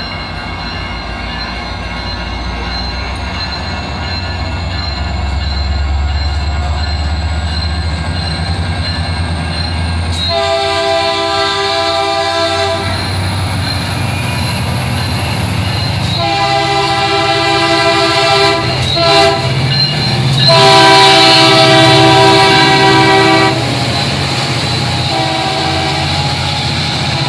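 Caltrain train approaching with a low rumble, then its multi-note air horn sounding four long blasts, the third the loudest.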